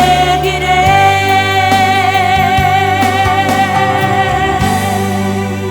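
Portuguese-language gospel song ending on one long held sung note with vibrato over the band, easing off near the end.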